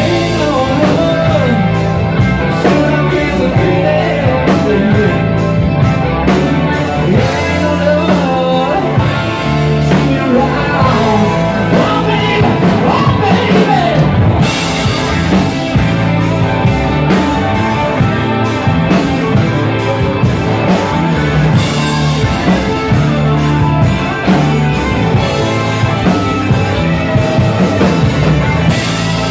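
Live rock band playing loud and steady: electric guitars, bass guitar and drum kit, with a singer's voice over them.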